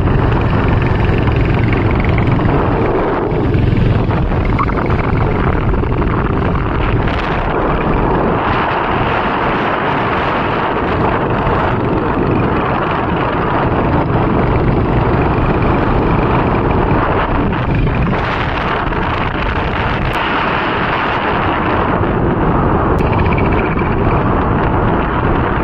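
Loud, steady wind rushing and buffeting against the microphone while travelling, with the rumble of the moving vehicle underneath.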